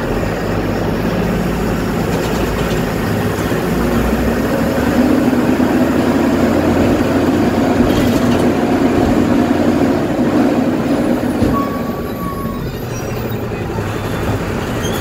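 Engine and road noise of a state-transport bus heard from inside the driver's cab while it drives along a highway. The running noise grows louder from about four seconds in and eases off again about twelve seconds in.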